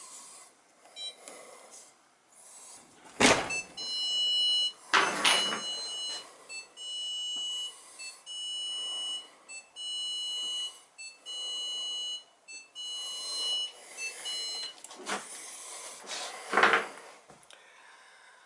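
Maytag dishwasher control panel beeping: a string of electronic tones, mostly held about a second each with short gaps, going on for about ten seconds. A few sharp knocks come through, the loudest near the end.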